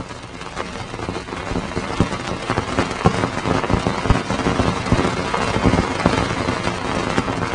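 Sonified NASA space recording: a dense, rumbling noise full of irregular crackles, building in level over the first two seconds and then holding steady.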